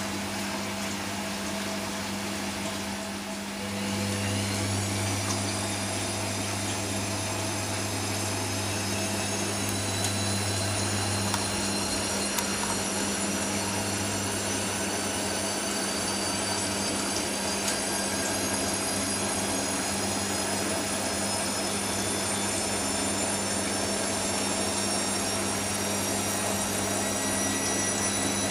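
Hoover Nextra front-loading washing machine going from load distribution into a spin toward 400 rpm. About four seconds in the motor picks up and its whine climbs slowly and steadily in pitch as the drum speeds up, over a steady low hum.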